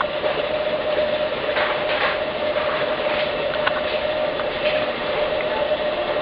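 Kettle of water coming up to the boil, a steady rushing rumble with a few faint ticks, and a steady humming tone running alongside.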